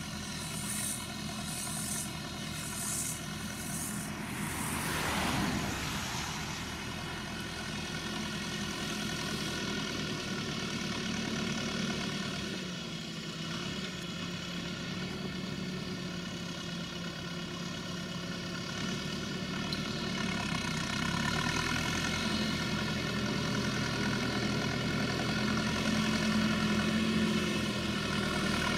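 Farm tractor engine running steadily as it drives a bale wrapper across a field, growing a little louder near the end. A brief rushing noise swells and fades about five seconds in.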